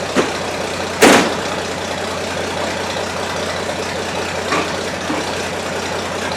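An old Chevrolet rat rod's engine running steadily, with a sharp clack about a second in and a few fainter knocks later.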